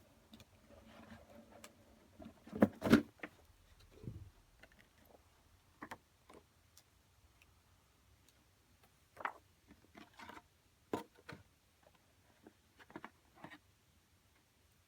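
Scattered clicks, knocks and light rustling of packaging and small parts being handled during an unboxing, with two sharper knocks about three seconds in.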